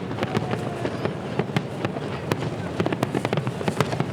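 Fireworks bursting overhead in a dense, irregular string of sharp cracks and bangs, several a second, over a continuous low rumble.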